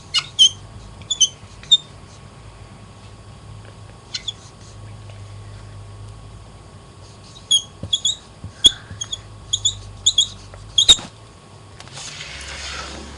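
Marker squeaking in short strokes as a word is written out, in two bursts of writing, followed near the end by a brief rustle.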